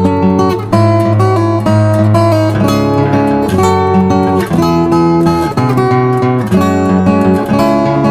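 Background music: strummed acoustic guitar with chords changing in a steady rhythm.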